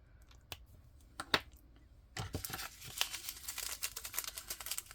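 Two sharp clicks, then from about two seconds in a dense crinkling of small plastic bags of diamond-painting drills being handled.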